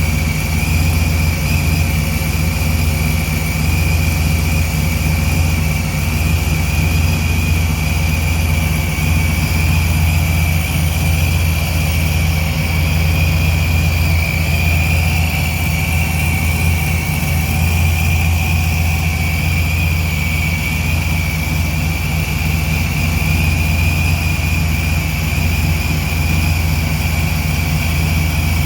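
Chevrolet S10's ProCharger-supercharged engine idling steadily at about 900 rpm while warming up, with a steady high-pitched whine over the low engine hum.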